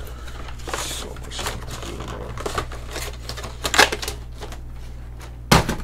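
Irregular light clicks, taps and rustles, with two louder knocks, one past the middle and one just before the end, over a steady low electrical hum.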